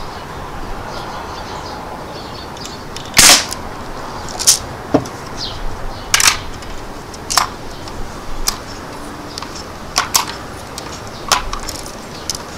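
Umarex NXG multi-pump air rifle, charged with four pumps, firing a BB with one sharp crack about three seconds in. Lighter clicks and snaps follow at irregular intervals.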